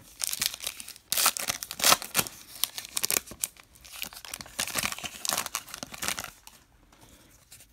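Foil wrapper of a Topps Star Wars trading card pack crinkling and tearing open in the hands, a run of crackly rips and crinkles that dies down near the end.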